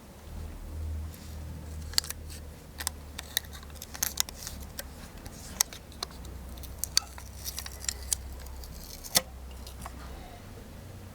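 Irregular sharp clicks and snips of small hand tools working metal lure parts, over a low rumble. The loudest click comes near the end.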